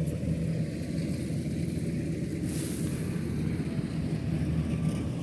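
Kubota DC93 combine harvester's diesel engine running steadily, a low even hum with no change in pitch.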